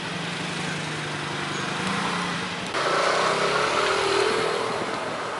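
Steady machine noise: a rushing sound over a low motor hum, which gets louder and higher in pitch about three seconds in.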